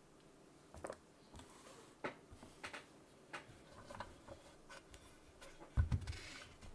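Scattered clicks, light taps and short rustles of hands handling mechanical keyboard parts as shelf liner is fitted into the case, with a dull thump near the end.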